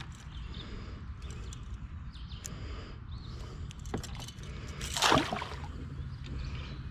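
Small water sounds and light knocks around a fishing kayak over a steady low rumble, with one short, loud splash-like burst about five seconds in.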